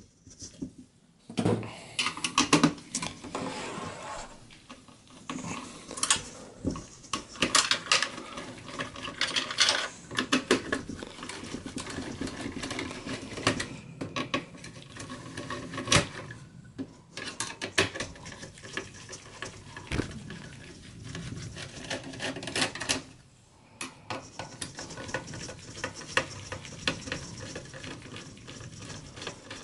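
Phillips screwdriver undoing the screws of the processor heatsink in a Dell OptiPlex 7020 small-form-factor desktop, with irregular clicks and light metallic clinks as the screwdriver and the metal heatsink are handled and lifted out.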